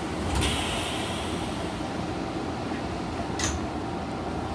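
Steady hum inside a standing Shizuoka Railway A3000 series electric train, its air-conditioning and equipment running. A hiss starts about half a second in and fades within a second or so, and there is a short sharp sound about three and a half seconds in.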